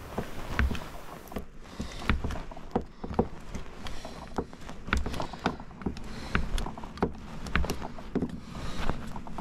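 Irregular sharp clicks and knocks, a few a second, of a flat steel scraper working along a plastic UPVC glazing bead to prise it out of the window frame, over a low rumble.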